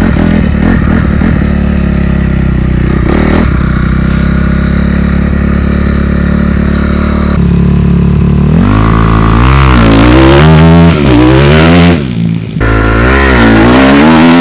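2016 Honda CRF250R's single-cylinder four-stroke engine under way with its stock exhaust. The engine note holds steady for about seven seconds, then the revs climb and fall again and again as the throttle is worked through the gears, with a brief drop just after twelve seconds.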